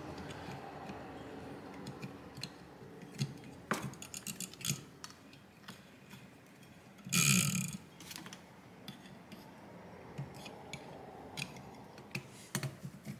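Hand screwdriver driving small screws into a graphics card cooler's plastic replacement fan, giving scattered light clicks and ticks of metal and plastic. A louder scrape lasts about half a second around seven seconds in.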